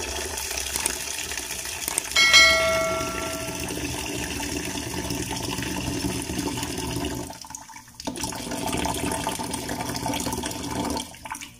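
Tap water running hard into a metal saucepan of hot water in a sink, splashing and churning, as cold tap water is mixed into the boiling water to cool it before it is poured away. About two seconds in, a ringing metallic clink sounds briefly. The flow dips for a moment about three quarters of the way through and stops near the end.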